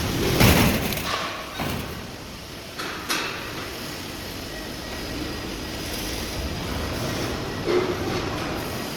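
Workshop machinery running steadily, with a few loud metal clanks and knocks, the loudest about half a second in and another near the end.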